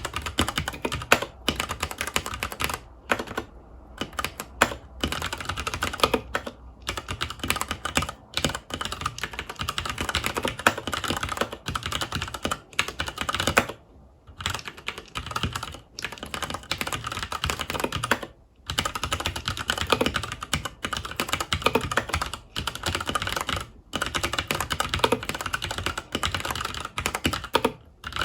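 Continuous fast typing on a FILCO Majestouch 2 mechanical keyboard with Cherry MX Brown switches: a dense clatter of key presses, broken by a few short pauses.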